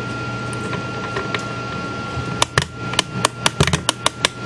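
Ratchet of an Ollie Baker-type clock mainspring winder clicking as the crank is turned, once the mainspring's end has caught on the winding arbor and the spring is being wound up. Sharp single clicks begin about halfway through and speed up into a rapid, even run near the end.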